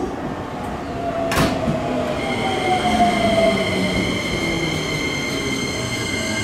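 Keikyu electric train at the station platform: a sharp clack about a second and a half in, then a whine that slides down in pitch, over steady high-pitched tones.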